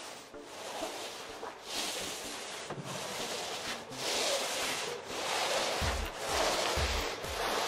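Paint roller on a long pole rolling wet anti-slip tackifier across a bare subfloor: repeated swishing strokes, one every second or two. Background music with a low bass line comes in about six seconds in.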